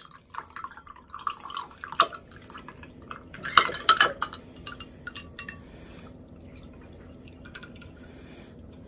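Rustling, crinkling and small clicks and knocks of food and its packaging being handled while eating a doughnut, busiest in the first half and thinning out to a few clicks over a faint steady hum.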